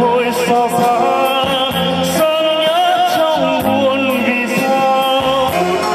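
A man singing a Vietnamese song into a microphone over a PA, with backing music. Held notes waver with vibrato.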